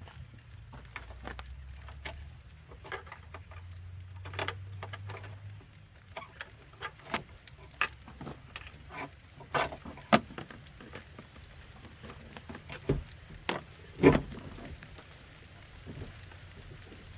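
Scattered plastic clicks and knocks as a replacement side mirror is handled and fitted against the door of a 2004 Chevrolet 3500 pickup and its wiring fed through, the loudest knock about fourteen seconds in. Light patter of rain drops between them.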